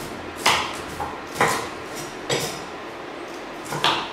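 Kitchen knife chopping onion on a cutting board: about five sharp knocks of the blade against the board, spaced unevenly.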